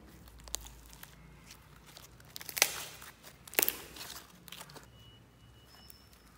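Hands squeezing and stretching glossy slime: sticky pops and crackles, with the loudest bursts about two and a half and three and a half seconds in.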